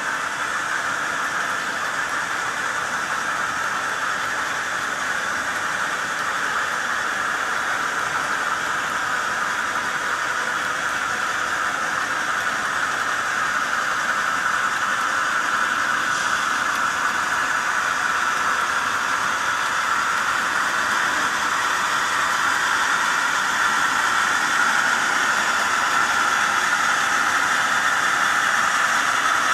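Metal wheels of S scale model freight cars rolling along the track: a steady rolling noise with no beat, growing slowly louder.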